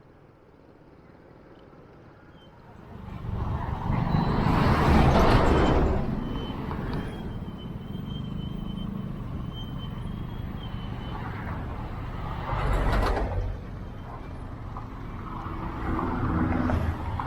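Road traffic and vehicle engine noise heard from a scooter riding in city traffic. It is quiet at first, swells loudly about three seconds in, and surges again about two-thirds of the way through.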